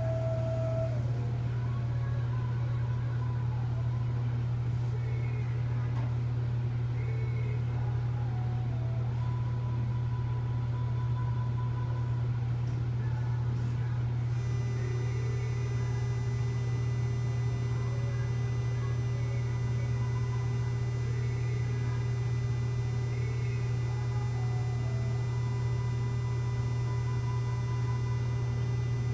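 Steady low electrical hum of a medical linear accelerator in a radiation treatment room. About fourteen seconds in, a high-pitched whine and a lower steady tone join the hum and hold.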